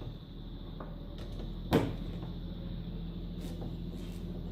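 A single sharp knock from engine parts being handled, with a couple of faint clicks later, over a low steady hum.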